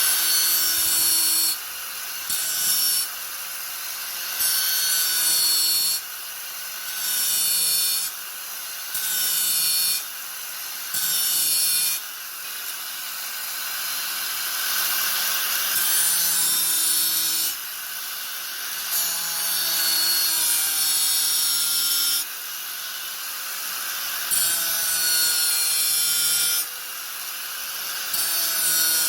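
Angle grinder running steadily with a constant whine, its disc pressed into the workpiece again and again: about ten bursts of harsh grinding, each one to four seconds long, with the motor running free between them.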